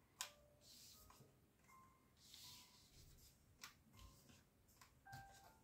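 Faint paper-like rustling and a few light ticks of tarot cards being handled and shuffled, near silence in between.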